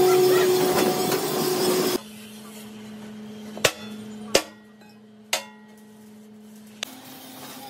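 Loud noise for about two seconds that cuts off suddenly, then three separate sharp hammer strikes on the welded steel plate of an expeller-machine housing, each ringing briefly.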